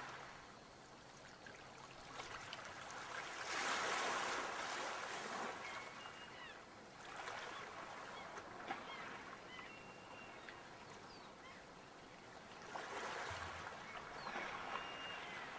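Ocean waves breaking and washing up the shore in slow swells, loudest about four seconds in, with smaller surges around seven and thirteen seconds. Faint short bird calls come through between the waves.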